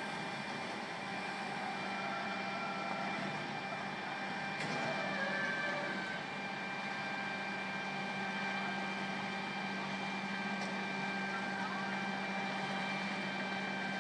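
Steady machinery drone: a constant low hum with several steady high-pitched whining tones over a hiss, and a brief clatter about five seconds in.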